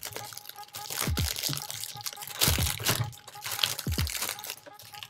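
Plastic snack packaging crinkling and rustling as a pack of maple leaf cookies is opened and handled, with a few low thumps.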